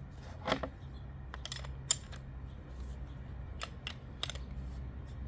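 A handful of sharp clicks and taps of small hard objects being handled, over a steady low hum.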